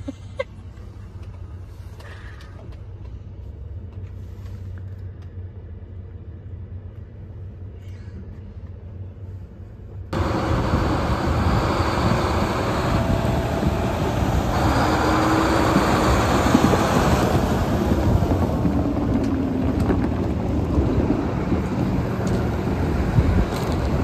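A steady low hum inside a vehicle cab, then an abrupt cut about ten seconds in to a much louder, steady noise of a large Case IH four-wheel-drive tractor running as it pulls a speed disc over gravel.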